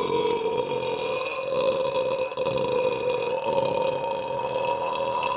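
A man's long, drawn-out belch from a gulped beer, held at a steady pitch for about six seconds after a brief drop at the start, ending near the end.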